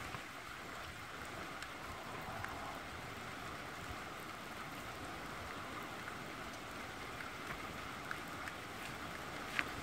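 Small fire burning on the front of a plastic model car: a steady hiss with a few faint crackles, the sharpest near the end.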